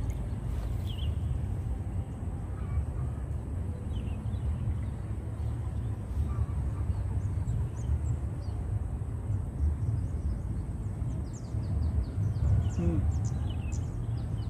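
Outdoor ambience: a steady low rumble, with scattered faint bird chirps that grow busier near the end.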